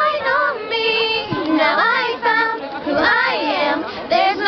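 A group of teenage girls singing a song together, several voices holding and moving between notes.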